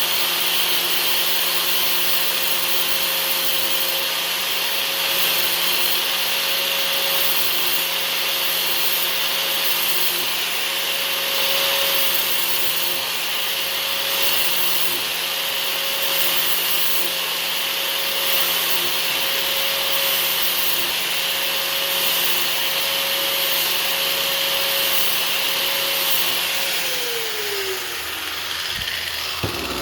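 Electric bench power tool running at steady speed with a hiss as the old screwdriver's pitted steel is worked against it. About 27 seconds in it is switched off and its hum falls in pitch as it spins down.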